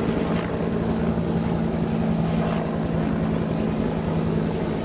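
A steady low mechanical drone, like an engine running, holding one pitch throughout.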